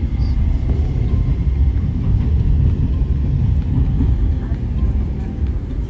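Light-rail train running, a steady low rumble heard from inside the car.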